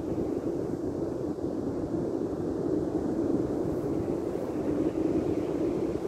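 Steady rumble of wind and breaking surf, an even noise with no distinct events.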